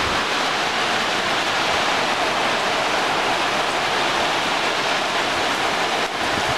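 Rain pouring down steadily: a loud, even hiss without breaks.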